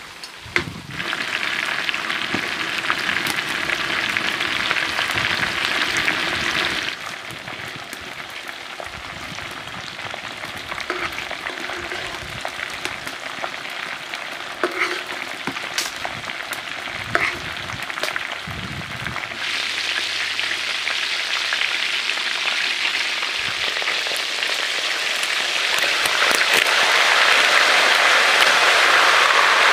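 Chicken frying in hot oil in an iron kadai: a continuous sizzle with scattered sharp pops. It drops in level about seven seconds in, then grows louder from about twenty seconds on and is loudest near the end.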